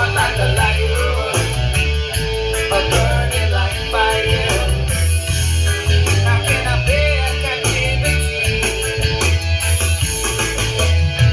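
A song with guitar and heavy bass, played loud through a PA system of amplifiers and passive speakers for a sound check.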